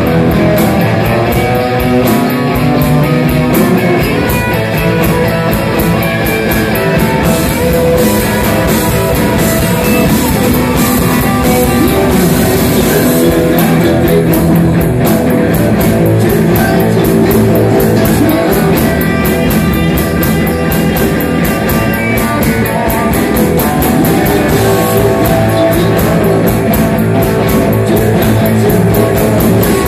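Live rock and roll band playing loud: electric guitar, bass guitar and a drum kit keeping a steady beat, with a male voice singing.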